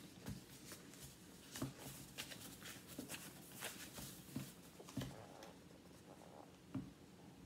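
Faint rubbing and scratching with light clicks and taps as a tissue is wiped over a phone's screen protector and the phone in its plastic case is handled.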